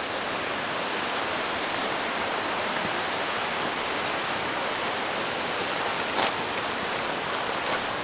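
Steady rush of a mountain creek cascading over rocks, with a brief sharp click about six seconds in.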